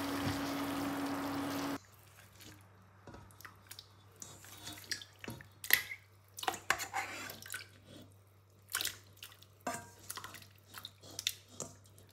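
Beef rendang sizzling in a frying pan, cut off suddenly a little under two seconds in. Then raw beef chunks dropped by hand into water in a rice cooker pot, giving small irregular wet plops and splashes.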